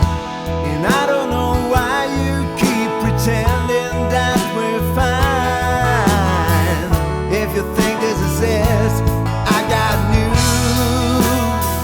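Music: a song with a singing voice over guitar and a steady low beat.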